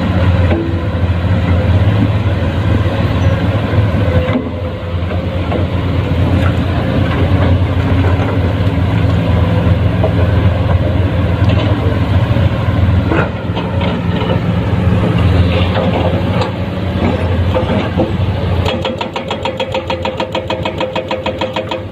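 Diesel engine of a Komatsu PC210-10 excavator running hard while loading, a steady low drone with a few scattered knocks. About three seconds before the end it drops to an even, pulsing throb.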